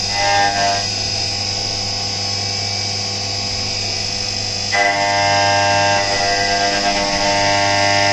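CNC vertical mill roughing a 6082 aluminium block with an indexable end mill under coolant spray: a loud, steady whine over a low hum, its tone shifting a little about five seconds in.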